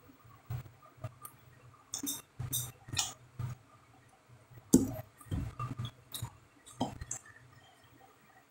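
Scattered soft clicks and taps with a few short mouth noises, close to the microphone and irregularly spaced, with quiet gaps between them.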